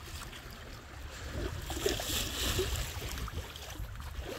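Water washing and lapping along a sailboat's hull under headsail alone, with no engine running, and wind rumbling on the microphone. The water's hiss swells briefly about two seconds in.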